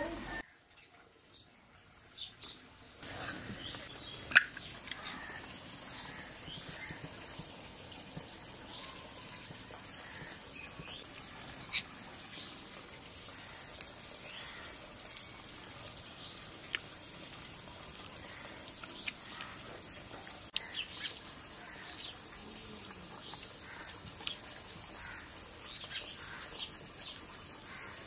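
Birds chirping in short, scattered calls over a steady background hiss, with a few sharp clicks. The first few seconds are nearly silent before this starts.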